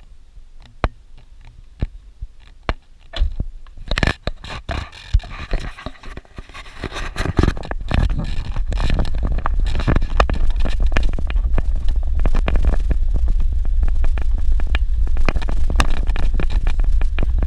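A vehicle driving on a dirt road: a steady low rumble full of crackling and rattling. It builds up from about four seconds in, after a few scattered clicks.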